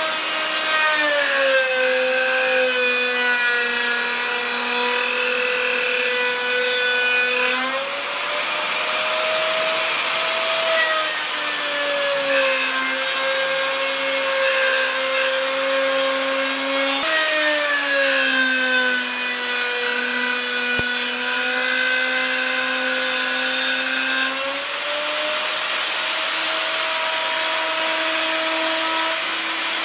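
Makita electric router running, its motor pitch dropping as the bit cuts into the pine boards and rising again as the load eases, twice over.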